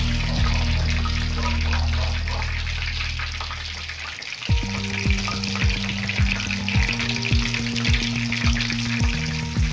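Whole pre-boiled chicken deep-frying in hot oil in a wok, with steady sizzling and bubbling. Background music plays underneath, and its beat comes in about four and a half seconds in.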